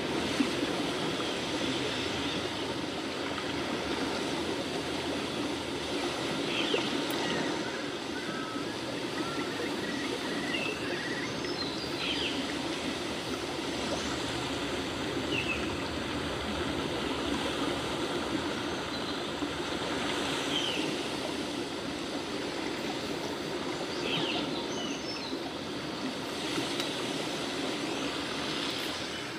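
Steady rushing noise like a running stream, with a few faint short chirps scattered through.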